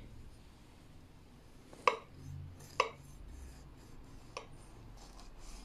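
Kitchen knife cutting through a soft baked fruit cake, its blade clicking sharply against the plate three times: two clicks about a second apart, then a fainter third a moment later.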